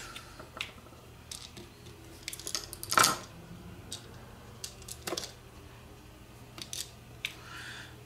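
Scattered small clicks and taps of hard plastic and small metal parts being worked by hand into a 12-volt power-cord plug, with a sharper click about three seconds in and another near five seconds, over a faint low hum.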